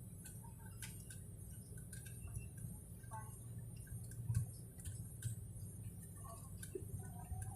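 Steady low drone of an airliner cabin, with irregular light clicks and ticks over it.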